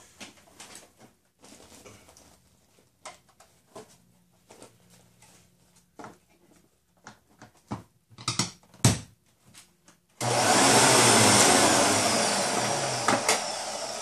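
Plastic clicks and knocks as the see-through bag door of a Hoover WindTunnel Supreme upright vacuum is worked back into place, with a sharp snap a little before nine seconds in. About ten seconds in the vacuum's motor is switched on with a sudden rush of air, inflating the bag, and then fades with a falling whine.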